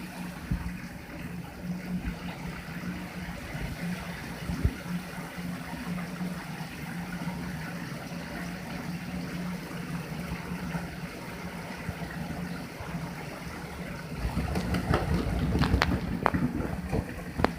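Shower water running and splashing, with a low steady hum under it. Near the end the splashing grows louder, with a few sharp knocks.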